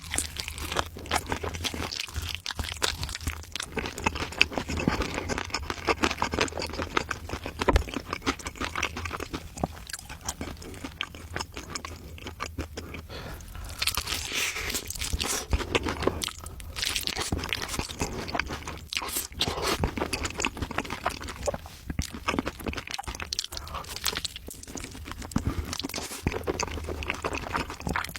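A person chewing and biting crunchy food close to the microphone, with a steady run of crackling crunches that grows louder and denser in stretches partway through.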